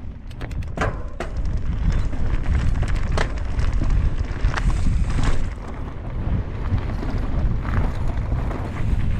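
Mountain bike riding down a rough enduro trail: wind rumbling over the microphone, with sharp clattering knocks from the bike hitting rocks and bumps, several in quick succession near the start.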